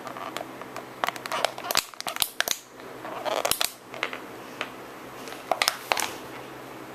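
Irregular clicks, crackles and crinkly rustling right against the microphone as a golden retriever's muzzle presses and bumps against the phone, in several clusters that die down near the end.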